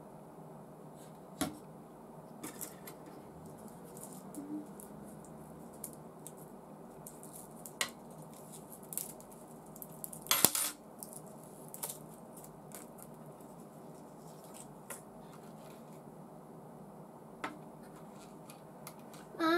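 Small plastic model-kit parts clicking and tapping as they are handled and fitted together on a table, with a louder short clatter about ten and a half seconds in.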